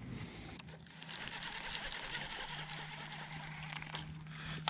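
Boat's electric trolling motor humming steadily, dropping slightly in pitch and getting stronger about two and a half seconds in, with wind noise and small handling clicks over it.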